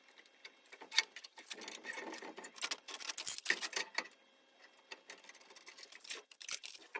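Woodworking clamps being set and tightened on glued wood pieces: a run of irregular small clicks and knocks, densest in the first few seconds and sparser after a short pause about four seconds in.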